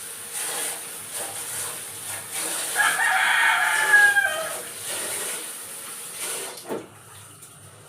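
A rooster crows once, a long call about three seconds in, over a steady hiss that stops near the end.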